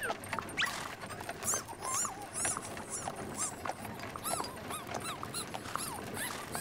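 Cartoon rat squeaking and chittering: a quick string of short, high squeaks, each rising and falling in pitch.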